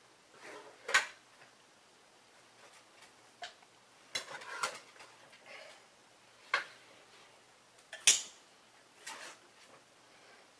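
Several sharp clicks and knocks of hard plastic and metal parts being handled on an 8mm film projector's reel spindle mechanism, spaced irregularly, with two louder knocks about a second in and near the end.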